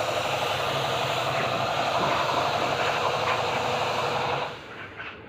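Compressed-air spray gun spraying PU polish: a steady hiss of air and atomised lacquer with a machine hum beneath it, cutting off about four and a half seconds in.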